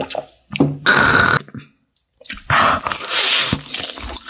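Close-miked eating sounds: a short, loud breathy exhale about half a second in, then about two seconds of biting and chewing into a fried chicken drumstick.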